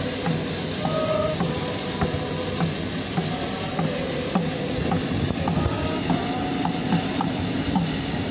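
Steady mechanical drone of a parked Indonesian Air Force jet airliner on the apron, with short scattered voice-like sounds over it.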